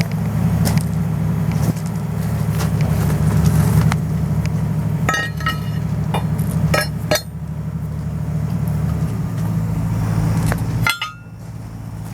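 Heavy machine engine running steadily while RS18 hydraulic metal shears work scrap metal, with sharp ringing metal clanks and clinks, a cluster about five to seven seconds in and another near eleven seconds. The engine note drops at that point.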